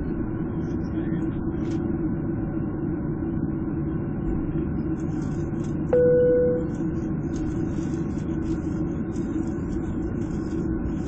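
Steady hum of a jet airliner's engines at taxi power, heard inside the cabin. About six seconds in, a single cabin chime rings once and fades within a second.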